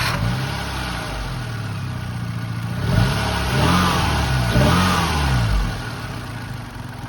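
Daihatsu Copen L880K's turbocharged 660 cc four-cylinder engine running just after start-up and revved up and back down a few times from about three seconds in. Its timing chain is slack enough to be near coming off, the cause of the engine's abnormal noise.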